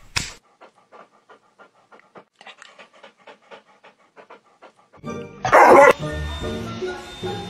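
A German Shepherd-type dog panting fast and evenly, about five short breaths a second, for about five seconds. Then a loud burst of noise and background music take over.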